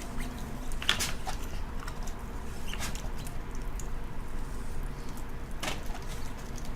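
Close-miked eating sounds of ramen: soft wet chewing and mouth noises, with about three short louder slurps or smacks over a low steady hum.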